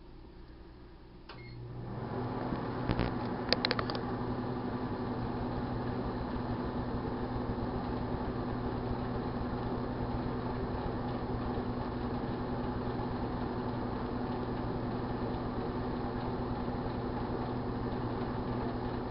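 1978 GE Dual Wave microwave oven starting up about a second in and then running with a steady electrical hum while it heats a bowl of Rice Krispies. There are a few sharp clicks shortly after it starts.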